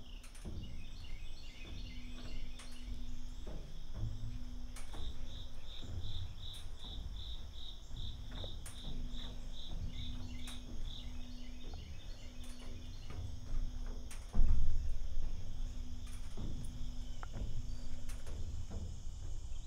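Crickets and katydids chirping in fast pulsing runs, with scattered footsteps and knocks on an abandoned coal tipple and one loud thump about fourteen seconds in.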